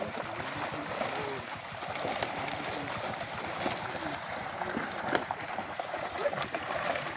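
Water splashing and churning as big rohu fish thrash in a net being hauled through shallow water, with occasional sharp slaps.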